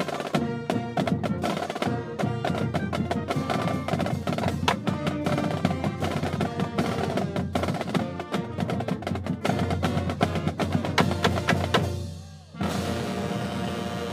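Student marching band of saxophones, clarinets, trumpets and sousaphones playing a fast tune over heavy drumming, breaking off about twelve seconds in and then holding a final sustained chord near the end.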